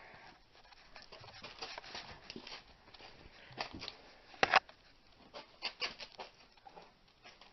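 Scattered clicks and knocks of work around the transmission and jack, the loudest a single sharp knock about four and a half seconds in, with a quick cluster of clicks just after.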